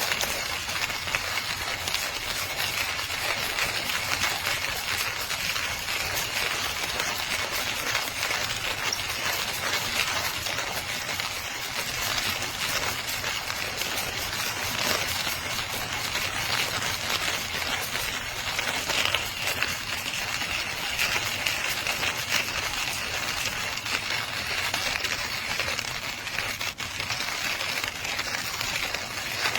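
Manual conical burr coffee grinder being hand-cranked, coffee beans crunching and crackling steadily between the burrs.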